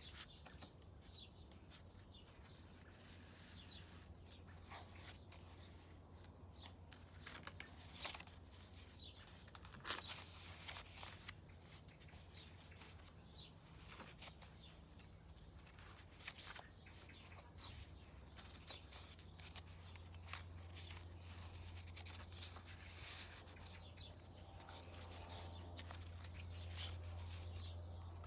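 Paper being handled and cut for a handmade journal: scattered rustles, taps and snips, over a steady low hum. A low drone builds slowly near the end.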